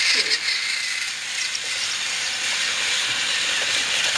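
Battery-powered Trackmaster toy train running along plastic track: a steady whir of the small geared motor and plastic wheels, with a few faint clicks about a quarter-second in.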